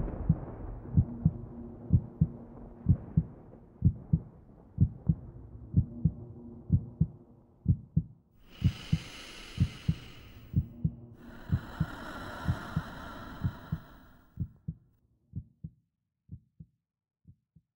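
Heartbeat sound effect: paired low thumps about once a second that thin out and fade near the end until they stop. Midway, two held ringing tones sound, each lasting a second or two.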